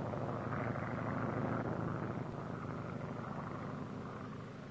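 Propeller airplane engine droning steadily, fading away over the last couple of seconds.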